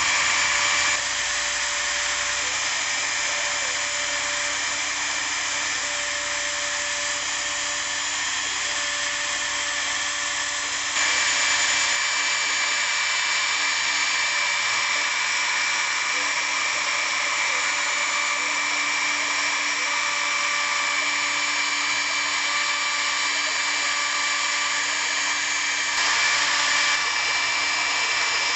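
Hobby CNC router spindle running continuously while milling wood, a steady high whine over cutting noise. The sound shifts up and down in loudness a few times as the cut changes.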